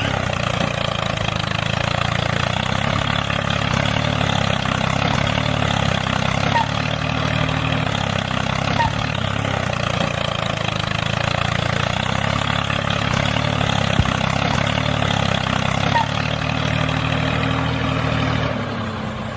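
A motor running steadily at an even pitch, stopping shortly before the end.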